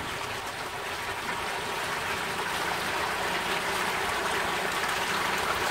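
Continuous light splashing on a fish pond's surface, growing slowly louder, as floating feed pellets are scattered by hand and young carp rise to take them.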